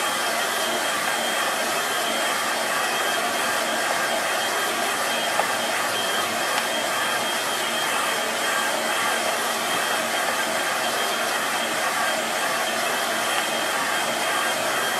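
Handheld Vidal Sassoon hair dryer blowing steadily, a rush of air with a thin high whine running through it.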